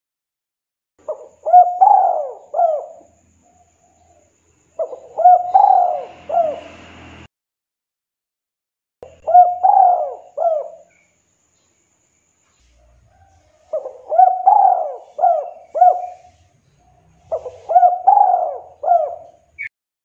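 Spotted dove (tekukur) cooing: five phrases of several quick, arched coo notes each, a few seconds apart. This is the 'kuk 2' call that keepers play to lure and challenge rival doves.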